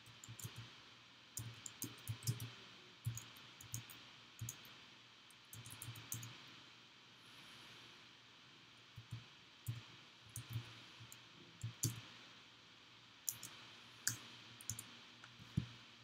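Computer keyboard typing in short, irregular runs of key clicks, giving way after about six seconds to scattered single clicks.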